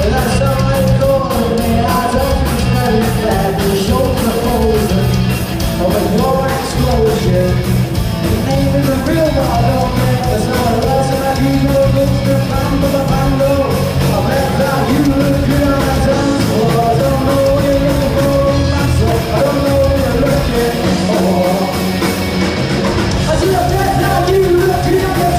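Live rock band playing amplified in a large hall: electric guitars and a drum kit with a sung lead vocal.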